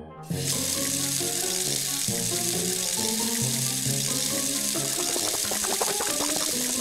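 Toy vanity sink's push-button tap switched on, giving a steady rushing hiss of running water that starts just after the button press, over background music.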